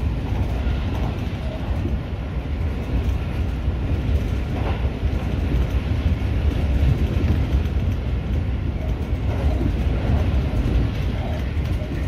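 Seibu 30000-series electric train running along the track, heard from inside the driver's cab: a steady low rumble of wheels on rails.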